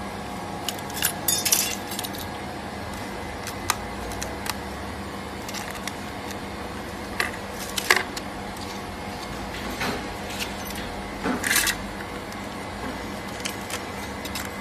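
Metal and plastic pry tools clicking and scraping against phone screen glass as it is worked apart from the LCD: scattered sharp ticks and short scrapes, the loudest about a second and a half in, near the middle and near the end, over a steady machine hum.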